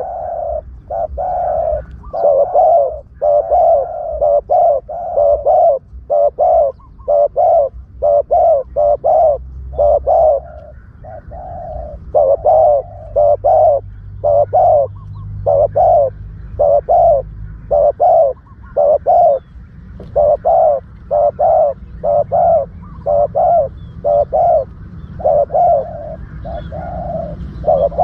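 Spotted dove cooing over and over, quick groups of low coos repeating without pause: a lure call for trapping spotted doves.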